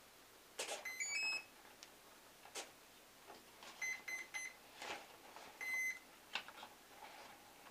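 Electronic speed controller start-up tones sounded through the brushless motor as the battery is connected. A short rising three-note chime about a second in, three quick beeps around four seconds (the cell count), and one longer arming beep near six seconds. Plastic clicks and knocks of the battery and its connector being handled come in between.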